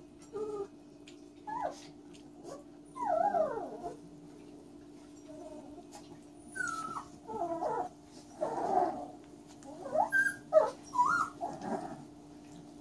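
Catahoula Leopard puppies whining and yelping during rough play: about a dozen short, high-pitched cries that bend in pitch, coming more thickly in the second half, over a steady low hum.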